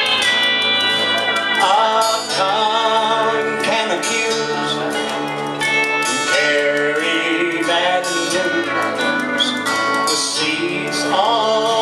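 Live country-style band music, guitars to the fore, playing without recognisable sung words.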